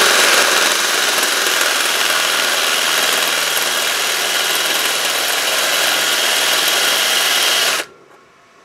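Ryobi ONE+ cordless drill running steadily at slow speed in reverse, the burnishing end of a screw extractor bit cutting into the head of a stripped hex bolt. It stops suddenly near the end.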